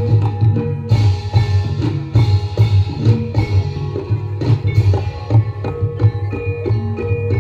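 Live jaran kepang accompaniment: drums and mallet-struck tuned percussion playing a steady, driving beat over a heavy pulsing bass.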